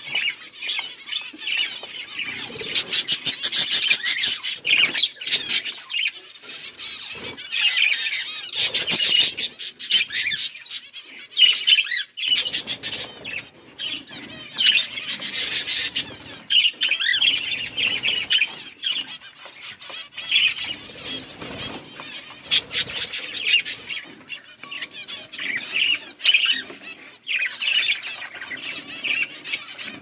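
Budgerigars chattering and chirping, a busy, continuous warble that swells into louder bursts several times.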